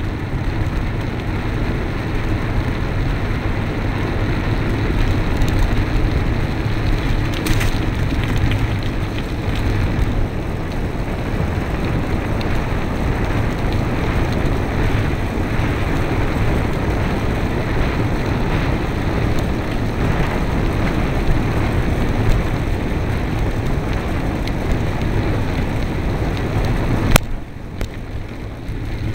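Steady rushing and rattling of wind and road vibration on a bicycle-mounted camera as the bike rides along. A sharp click near the end, after which the noise is quieter.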